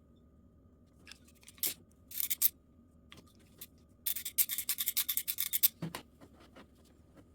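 Short scraping sounds, then a quick run of rapid back-and-forth scraping strokes, ending in a dull thump.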